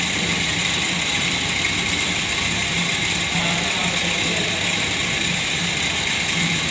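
Lathe running with its single-point tool taking a facing cut across a large spinning metal disc: a steady machining hiss over the low hum of the machine, even in level throughout.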